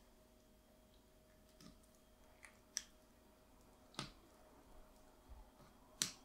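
A few light, sharp clicks and taps of bamboo skewers being handled against a wooden cutting board while a whole sweetfish is skewered, the loudest near the end, over a faint steady hum.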